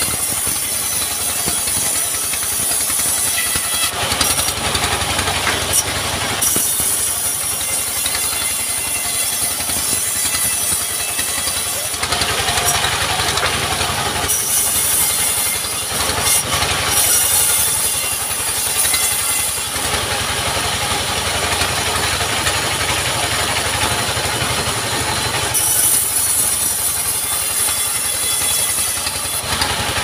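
Sawmill band saw running steadily, with a louder, hissing cut each time a log is pushed through the blade, several times over.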